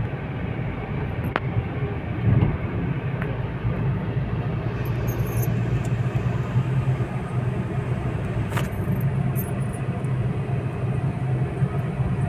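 Inside a moving car's cabin at highway speed: a steady low rumble of engine and tyre noise, with a couple of light clicks.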